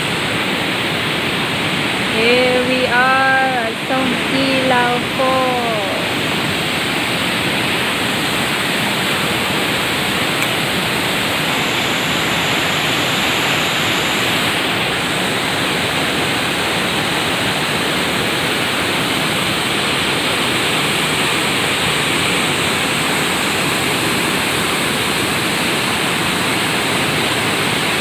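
Steady rushing of a small waterfall running low in the dry season. A person's voice calls out briefly a few seconds in.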